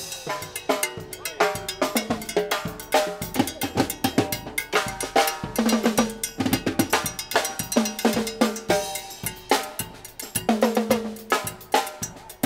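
Drum break on timbales and a mobile drum rig: fast stick strikes on the drumheads and metal shells, with rim shots and cymbal hits. Some strikes leave short ringing tones.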